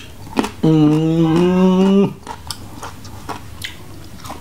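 A man's drawn-out, level-pitched vocal sound for about a second and a half, rising a little halfway, followed by scattered wet mouth clicks and smacks of chewing.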